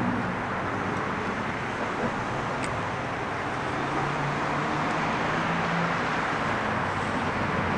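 Steady outdoor background noise: an even hiss with a faint low hum underneath.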